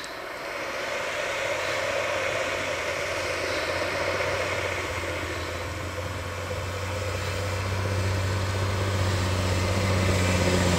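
Isuzu D-Max pickup's engine running steadily as the truck ploughs up a track through deep snow, its low note growing louder as it comes closer, with the hiss of snow and tyres underneath.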